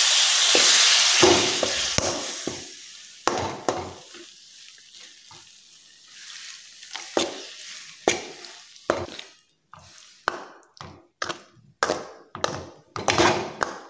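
Water poured into hot fried masala in an aluminium kadai sizzles loudly, the hiss dying away over the first few seconds. A steel ladle then stirs and scrapes the pan in short strokes, about two a second.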